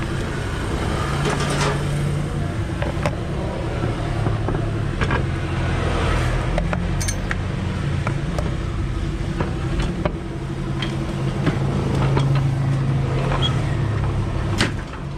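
A motor vehicle engine running steadily, with scattered sharp metallic clicks and knocks over it.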